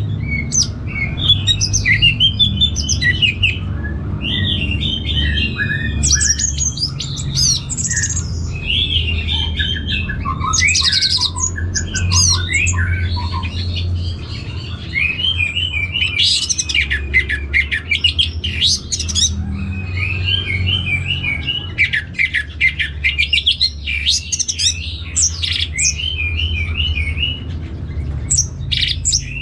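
Orange-headed thrush singing a long, rapid, varied warbling song of quick sharp phrases, one after another with only brief pauses, over a steady low hum.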